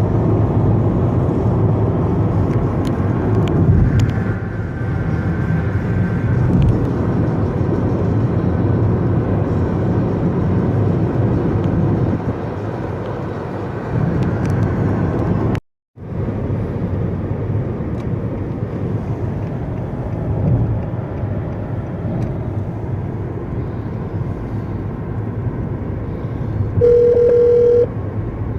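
Car interior road and engine noise while driving on the highway, a steady hum, with a brief drop-out about halfway. Near the end, a telephone ringing tone sounds for about a second as a phone call is placed.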